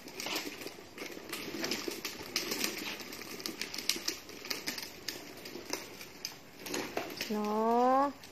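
Plastic wheels of a child's ride-on toy car rattling and clicking irregularly as it is scooted over rough ground. Near the end comes a short, loud pitched sound that rises slightly.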